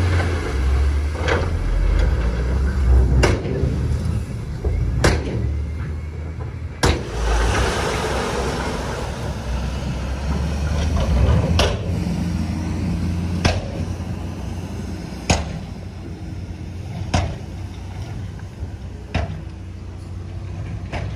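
Heavy diesel engine running steadily under load, with sharp knocks at a regular pace of about one every two seconds; the sound gradually fades toward the end.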